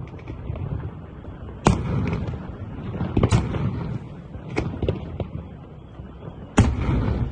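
Professional fireworks display: firework bursts booming over a steady low rumble. Two loud, sharp bangs come about one and a half seconds in and near the end, with smaller cracks between them.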